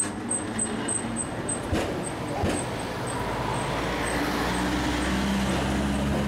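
Street traffic with a motor vehicle engine running close by. A steady low hum sets in about halfway through, and a faint rapid ticking fades out over the first few seconds.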